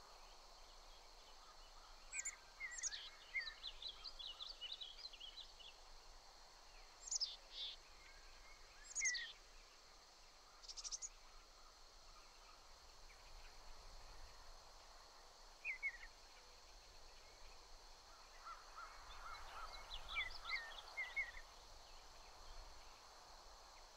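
Faint wild birdsong over a steady outdoor hiss. Birds call at intervals with short high chirps and quick sweeping whistles, and there is a busier run of chips a few seconds before the end.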